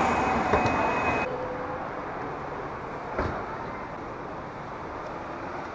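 Steady background rush of a parking garage, with the hum of distant traffic. It is loud for about the first second, then drops to a lower, even level, with a single knock about three seconds in.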